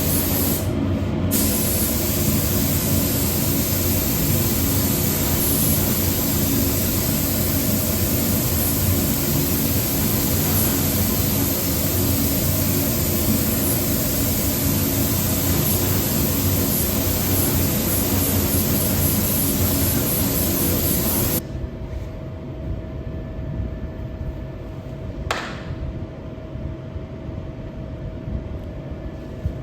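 Paint spray gun hissing steadily over a steady hum; the hiss cuts off suddenly about two-thirds of the way through, leaving a quieter hum and a single click.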